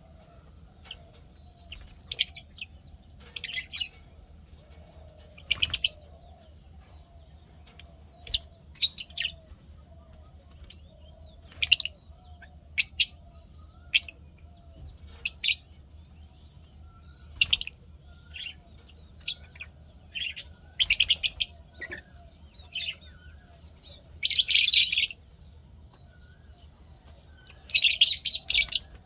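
Lovebirds calling: short, sharp, high-pitched chirps at irregular intervals, with two longer bursts of rapid chattering near the end.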